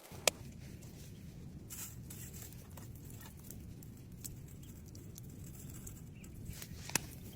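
Crucian carp grilling on a small grill: a low steady rumble with scattered faint crackles, and two sharp clicks, one just after the start and one near the end.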